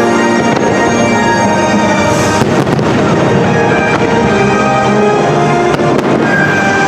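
Orchestral fireworks-show score playing loudly over the park's speakers, with fireworks bursting over it, a couple of sharp bangs about two and a half seconds in and again near six seconds.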